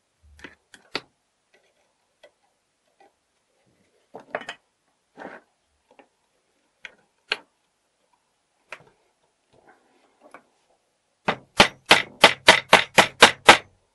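Light metal clicks of springs and small parts being handled inside an old mortise door lock. Then, near the end, a quick, even run of about a dozen sharp metal taps, about four a second, as a punch held on a post in the lock case is tapped with a hammer.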